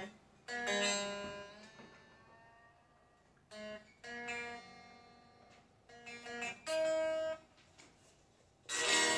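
Freshly strung Telecaster-style electric guitar being tuned by ear: single strings plucked a few at a time and left to ring, with one note sliding up in pitch as its tuner is turned, then a louder strummed chord near the end.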